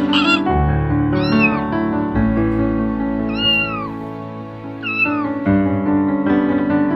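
A domestic cat meows three times, each meow rising and then falling in pitch, over background music. A brief call is heard right at the start.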